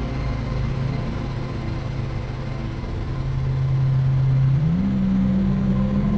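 Synthesizer drone through effects pedals: a steady low hum over a noisy wash, the low tone sliding up in pitch and holding a little higher near the end.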